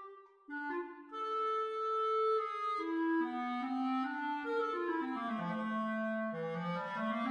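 Solo clarinet playing a melodic line. After a brief pause near the start it plays a run of held notes, then steps down into its low register near the end.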